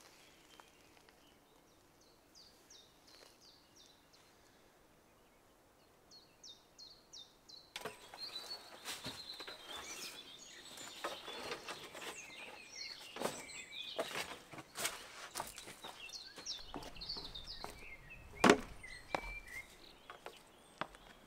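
Small birds chirping in short runs of quick high notes. From about eight seconds in, scattered knocks and scrapes of work, with one loud knock near the end.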